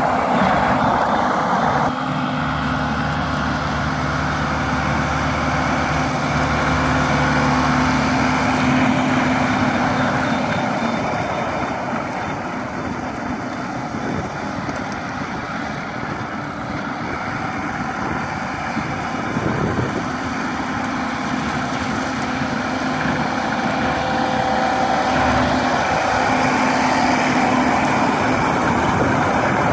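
Case IH JX95 tractor's diesel engine running steadily, driving a batwing rotary cutter (brush hog) through grass. The sound fades somewhat in the middle as the tractor draws away and grows again near the end as it passes close.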